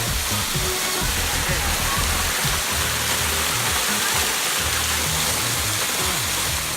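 Steady loud rushing noise, with music playing underneath; the rushing cuts off at the very end.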